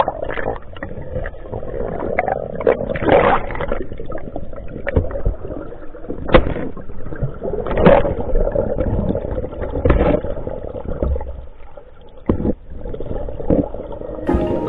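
Water splashing and sloshing in irregular surges every second or two, with a few sharp knocks.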